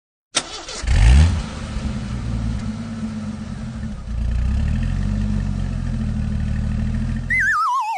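A vehicle engine starts suddenly and revs up, then runs steadily with a low rumble. Near the end it cuts off as a wavering whistle slides down in pitch.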